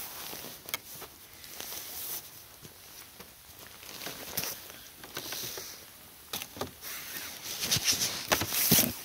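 Irregular crunching and rustling footsteps in snow and dry leaf litter, louder and closer together near the end.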